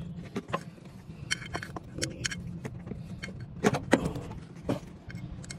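Scattered metallic clinks, knocks and scrapes from tools and hands working the deck-engagement spring and cable hardware under a riding mower, over a steady low hum.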